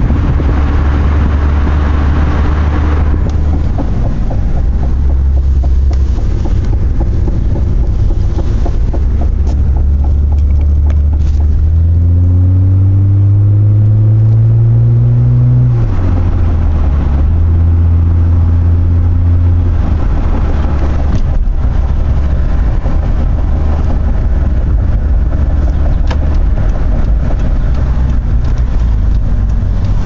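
Car being driven, with a deep low thumping rumble under the engine and road noise: the unexplained noise the owner is asking about. Wind hisses on the microphone for the first few seconds. About twelve seconds in, the engine rises in pitch as the car accelerates, then drops suddenly as the transmission shifts up.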